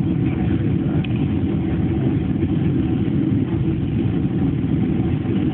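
Steady cabin noise inside a Boeing 767-300 airliner on approach: the low rush of the jet engines and airflow, even in level, with a faint steady tone above it.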